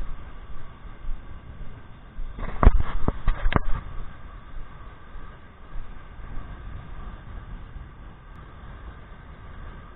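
Steady low rumble of wind buffeting an action camera's microphone over the hiss of surf, with a quick cluster of four or five knocks from the camera being handled about two and a half seconds in.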